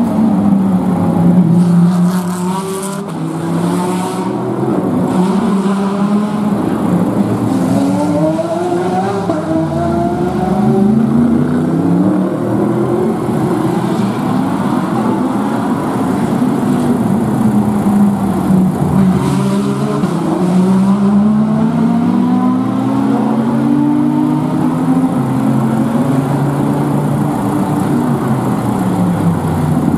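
Several race car engines lapping a circuit at once, their pitches rising and falling as they accelerate, shift and brake, with no let-up.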